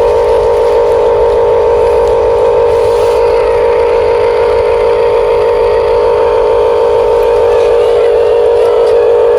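Small electric motor of a radio-controlled toy construction machine running with a steady, even whine.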